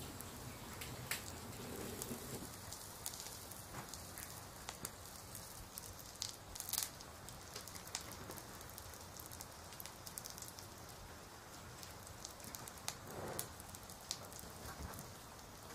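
Dry corn husks rustling and crackling in the hands as small mackerel are wrapped in them: scattered crisp clicks over a faint steady hiss.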